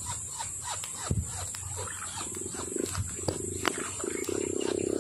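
A low, rapidly pulsing animal call that comes in about two seconds in and grows stronger, over a steady high insect buzz, with scattered sharp clicks.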